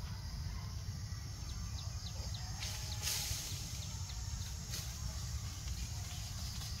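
Forest ambience: a steady low rumble with a scatter of faint, short, high bird chirps, and a brief rustling noise about three seconds in.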